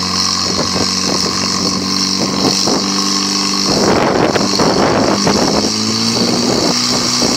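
Portable fire pump engine running hard and steady while it drives water through the attack hoses. About halfway through a rushing noise rises over it for a couple of seconds, and near the end the engine note steps up a little.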